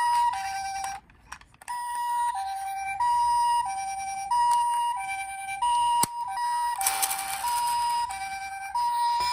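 Ambulance siren in the Japanese two-tone "pi-po" pattern: a high and a low electronic tone alternating steadily, each held about two-thirds of a second. It cuts out briefly about a second in, and a sharp click and a short hiss come in around six to seven seconds in.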